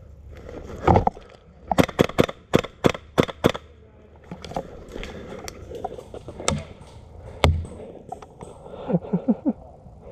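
Airsoft rifle fired in quick semi-automatic shots, about seven sharp cracks roughly three a second. Dull knocks come about a second in and again past the middle.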